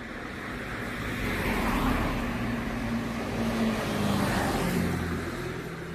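Road traffic: motor vehicles driving past, engine and tyre noise swelling about a second in and fading near the end.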